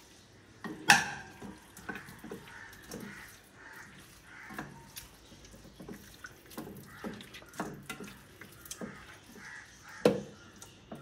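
Wet plops and knocks of raw pork pieces being handled into a pressure cooker, irregular, with a loud hit about a second in and another near the end.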